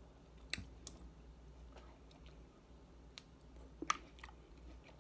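A person chewing cherries: scattered soft, wet mouth clicks, with two sharper clicks about half a second in and just before four seconds in.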